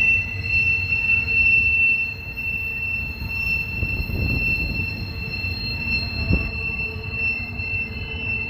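Double-stack intermodal freight train rounding a tight curve, its wheels squealing in a steady high-pitched tone over the low rumble of the rolling cars. A single knock sounds about six seconds in.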